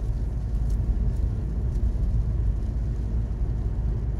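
Steady low rumble of a car driving at moderate speed, with engine and tyre noise on a wet road heard from inside the cabin during heavy rain.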